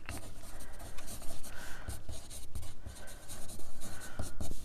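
Wooden pencil writing on cardstock, the lead scratching across the paper in a run of short strokes.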